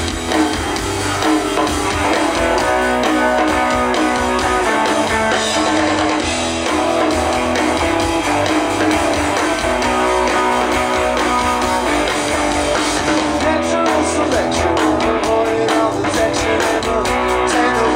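Live rock band playing an instrumental opening, with guitars strumming over bass.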